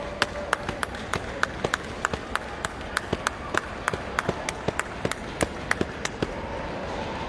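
Ringside spectators clapping steadily, sharp claps about four a second, stopping about six seconds in.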